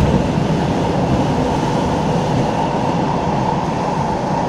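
Siemens C651 metro train running along the track: a steady, continuous rumble with a steady high tone running through it.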